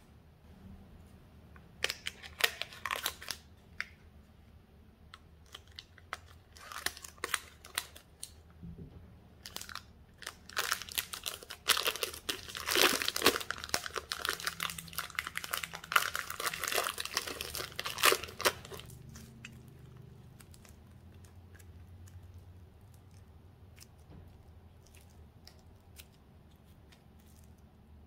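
Thin plastic wrapping crinkling and tearing as it is peeled off pieces of slime by hand: short bursts about two and seven seconds in, then a longer dense stretch of crackling from about ten to eighteen seconds, after which it goes quiet but for faint handling.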